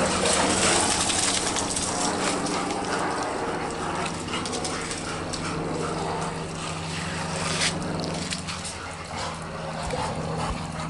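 Yellow Labrador retrievers vocalising over a steady low hum and hiss.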